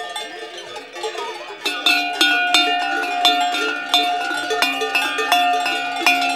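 Cowbells on grazing cows clanking irregularly, ringing at several pitches. From about two seconds in, a bell close by clanks louder and sharper as the cow wearing it tosses its head.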